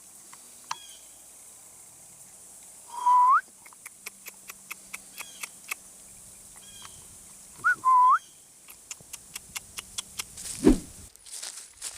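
Two short whistles about four and a half seconds apart, each a held note that slides upward at the end, with scattered small clicks between them and a brief rushing burst near the end.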